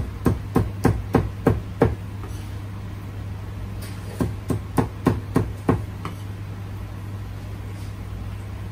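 Cleaver chopping on a wooden chopping block: a quick run of about seven strokes, then after a pause of about two seconds another run of about six.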